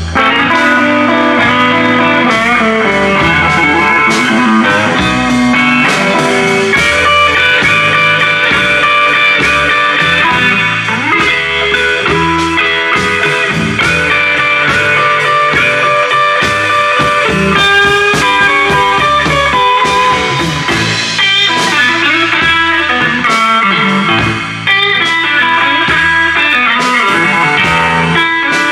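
Live blues trio playing instrumentally: electric guitar lines over double bass and a drum kit, with no singing.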